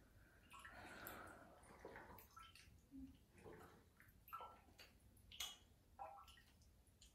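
Faint bath water splashing and dripping: a few soft splashes and drips scattered through, with a slightly longer stretch of water movement about a second in.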